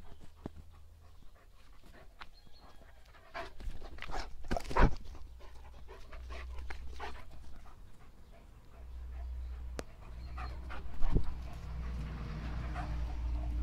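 German shepherd panting while it runs about, with scattered sharp knocks, the loudest about five seconds in and again about eleven seconds in. A low rumble builds through the second half.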